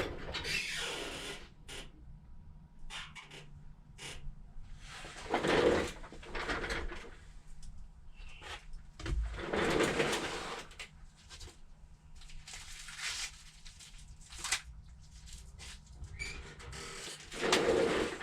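Intermittent handling noises: short rustling swells and a few small clicks, as a replacement iPhone screen and its packaging are picked up and handled.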